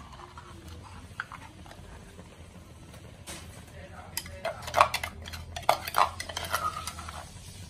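Metal spoon scraping and knocking against a mortar as pounded curry paste is scraped out into a pot of boiling water: a quick run of clinks and scrapes from about four seconds in, loudest around the middle, stopping shortly before the end.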